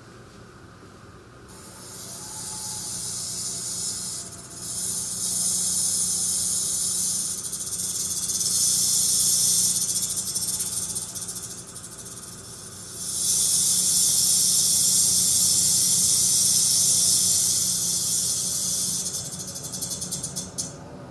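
Black-tailed rattlesnake rattling: a high, dry buzz that starts about a second and a half in and comes in several long bouts with short dips between them, breaking up and fading near the end.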